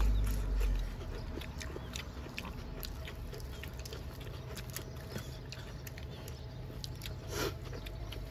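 Close-up eating sounds: chewing and biting with many small wet mouth clicks, and a louder crunch about seven seconds in as a fresh lettuce leaf is bitten. A low rumble fades out about a second in.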